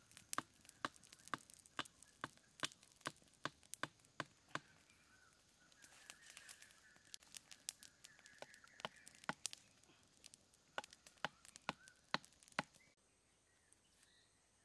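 A small fire of dry leaves burning and crackling, with sharp pops two or three times a second; the crackling stops suddenly near the end.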